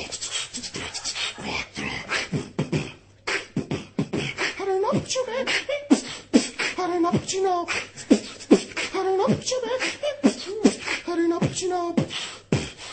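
A person beatboxing: percussive mouth-made drum sounds in a quick, steady rhythm. From about four seconds in, sung, bending vocal tones are layered over the beat.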